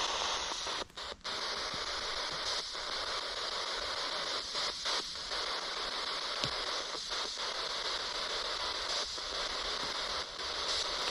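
Spirit box radio scanner sweeping through frequencies, giving a steady hiss of white-noise static broken by short dropouts every second or so.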